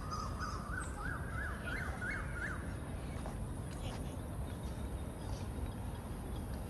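A bird calls a quick run of short notes that climb in pitch, ending about two and a half seconds in, over a steady low background rumble.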